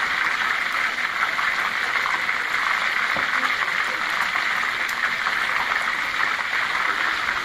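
Hot oil sizzling and bubbling steadily around a whole pre-boiled chicken deep-frying in a wide pan.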